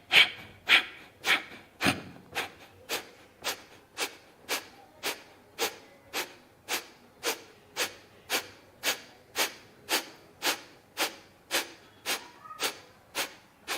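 Kapalabhati breathing through both nostrils: short, forceful nasal exhalations driven by pumping the belly, in an even rhythm of about two sharp puffs a second.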